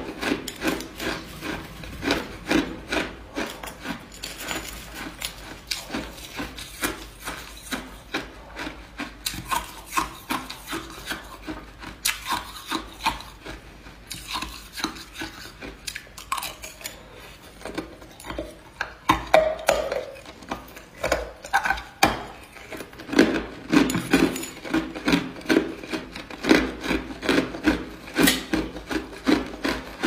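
Crushed and hard ice being crunched between the teeth: a rapid, uneven run of crisp crunches, growing louder and denser in the last third.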